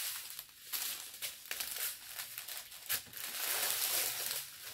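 Plastic packaging crinkling as it is handled, in a series of short rustles with a sharper crackle about three seconds in, then steadier rustling.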